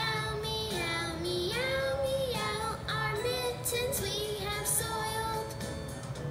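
Children's voices singing a melody over musical accompaniment, the sung notes sliding from one pitch to the next.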